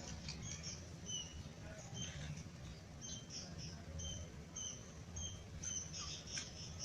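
Small birds chirping: faint, short high notes repeated about every half second throughout.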